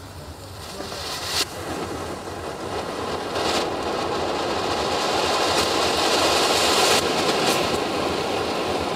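Ground fountain firework burning: a steady hissing rush of sparks that builds up over the first several seconds, with a few sharp crackles.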